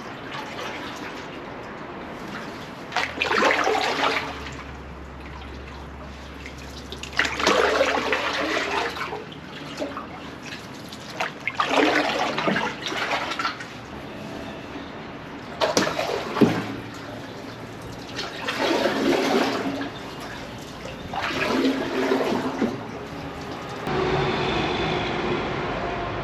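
Canoe paddle strokes in shallow canal water: about seven swishing splashes, roughly one every four seconds.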